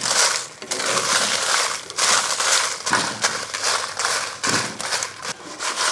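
Whole dry red chillies being dry-roasted in a clay pot and turned with a flat spatula: a dry, papery rustling and scraping with each stroke, with crackling from the crisp chillies.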